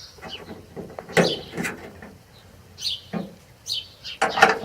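Several irregular knocks and rustles of objects being handled, the loudest cluster near the end.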